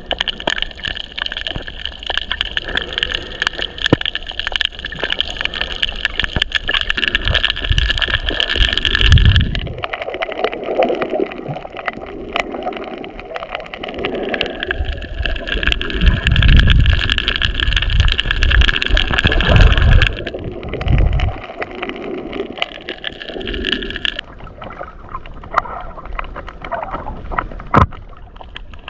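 Underwater coral-reef soundscape: a dense, constant crackle of sharp clicks, typical of snapping shrimp, over low surging water sounds. A steady high whine is heard through the first third and again around the middle.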